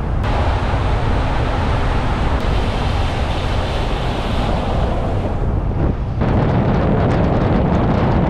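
Wind rushing over a car-mounted camera's microphone, mixed with the road and tyre noise of a car driving on a wet road. The noise dips briefly about six seconds in, then resumes at the same level.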